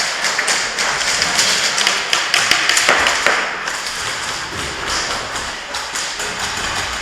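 Airsoft guns firing and BBs striking, heard as many quick, irregular taps and clicks over a continuous hiss.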